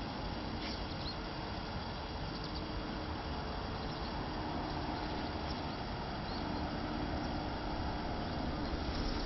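Steady outdoor background rumble and hiss, with a few faint, short, high chirps scattered through it.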